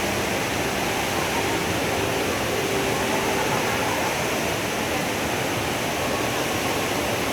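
Steady rush of a large indoor waterfall, the Rain Vortex, its water falling continuously without change.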